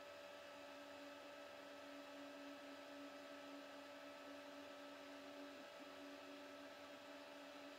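Faint steady hum of the Tronxy CRUX 1's Z-axis stepper motor turning the lead screw as the X-axis gantry moves up, with a brief break about five and a half seconds in.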